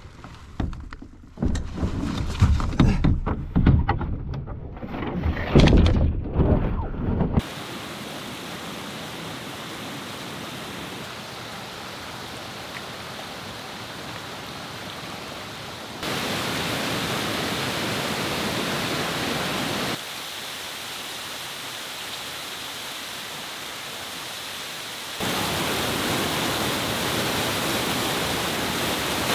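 A waterfall's rushing water, a steady even rush that jumps up and down in level about halfway in, again about two-thirds in, and near the end. It is preceded by about seven seconds of irregular thumps and rustling.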